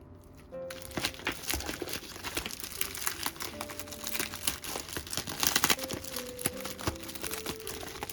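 Packaging crinkling and crackling as it is handled, starting about half a second in, over soft background music.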